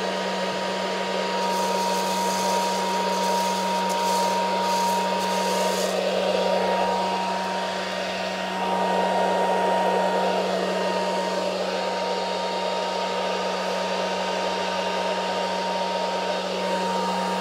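Aillio Bullet coffee roaster's cooling fan running steadily, a whir with a low hum and a thin high whine, as a freshly discharged batch of beans cools in the cooling tray. Faint light rustling of beans in the tray during the first few seconds.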